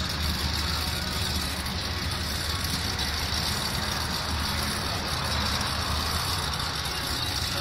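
Ford SVT Lightning pickup's supercharged 5.4-litre V8 idling steadily, with no revving.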